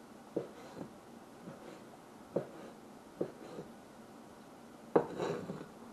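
Cleaver chopping raw chicken breast on a wooden cutting board: a few irregular knocks of the blade against the board, the loudest about five seconds in.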